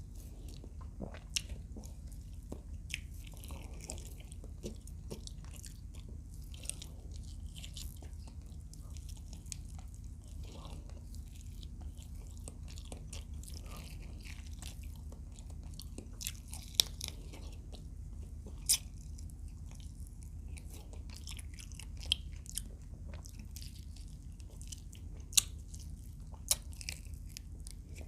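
A person chewing with the mouth close to the microphone, eating fried adobo quail, with scattered small crunches and a few sharper, louder clicks. A steady low hum runs underneath.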